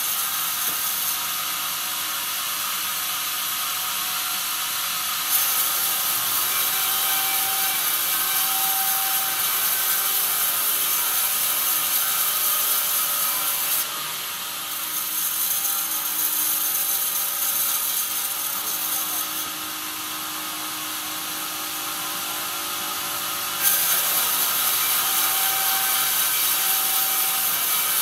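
Band sawmill ripping a squared pine log: a steady hiss of the band blade cutting through the wood over the running saw and log carriage. A cut starts sharply about five seconds in, drops back twice in the middle, and a fresh cut starts sharply near the end.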